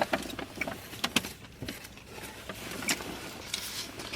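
Close-up eating and food-handling noises: irregular sharp clicks, smacks and short rustles from chewing and from handling food in its wrapping.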